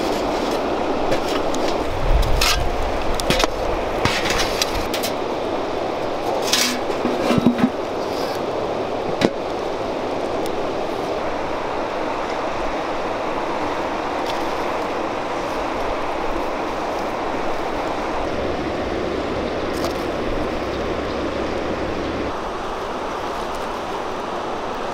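Steady rushing outdoor background noise, with a few short knocks and clatters in the first eight seconds or so and one more about nine seconds in.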